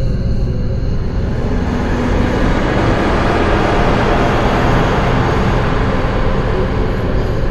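Dark ambient soundtrack: a low rumbling drone under a hissing wash of noise that swells in the middle and eases off toward the end.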